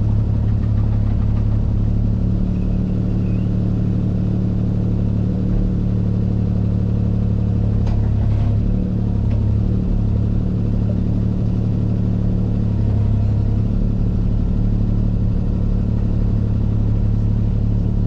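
Diesel engine of a piece of earthmoving equipment running steadily at a constant pitch.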